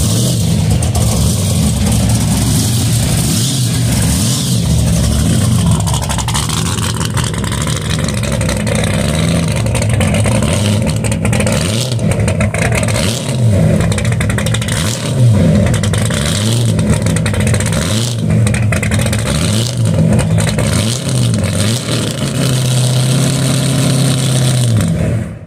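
Blown 509 cubic-inch V8 of a 1970 Chevrolet Nova pro street car, topped by a 14-71 supercharger on a tunnel ram, running loud and being revved in short blips again and again as the car moves off. It holds a steadier higher rev for a couple of seconds near the end, then the sound cuts off suddenly.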